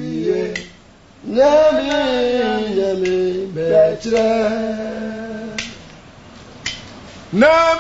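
A voice singing or chanting in long drawn notes that slide slowly downward, with short breaks between phrases.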